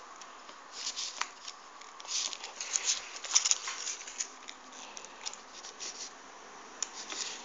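Folded paper 3D origami units rustling and crackling as fingers handle them and push them into the model, in irregular clusters of short, crisp ticks.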